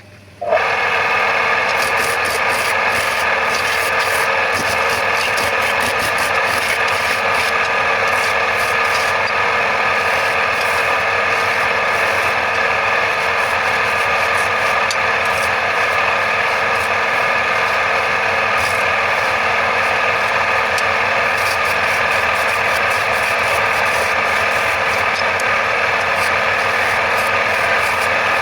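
Wood lathe turning a wooden bed leg: a loud, steady scraping rub of the tool against the spinning wood, starting about half a second in.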